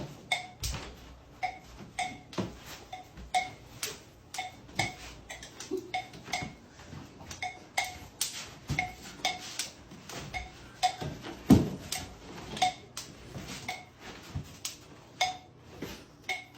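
Repeated short clinks of a hard object, about two a second at uneven spacing, each with a faint ring, and one louder low thud about eleven and a half seconds in.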